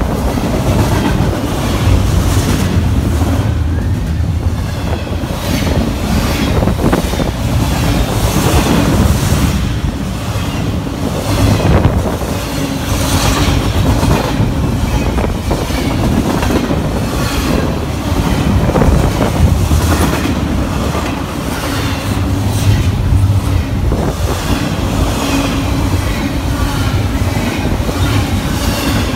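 Double-stack intermodal container freight cars rolling past close by: a steady loud rumble, with the wheels clacking irregularly over the rail joints.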